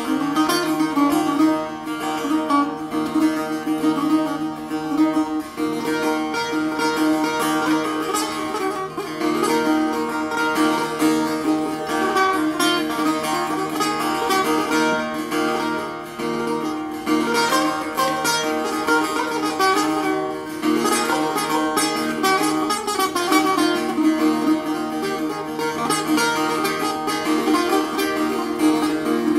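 A setar, the Persian long-necked lute, made by Hamid Tabasi, played solo: an improvisation in the Bayat-e Tork mode on F, a dense run of plucked notes over a steady low open-string drone. Its strings are tuned C–F–C–C, a whole tone below standard pitch.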